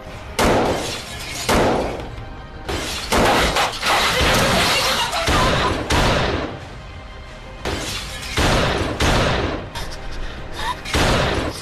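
Pistol shots fired at a house, a series of sudden loud bangs about a second apart, with glass shattering and a longer crashing stretch in the middle, over background music.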